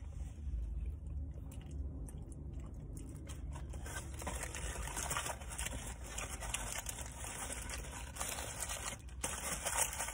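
A person chewing and biting into a breakfast sandwich, with crinkling of its foil wrapper. The crackling is busiest in the second half.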